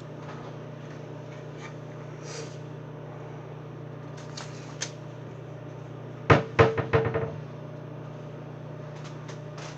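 Steady hum of a running microwave oven, with a quick cluster of clattering knocks about six seconds in.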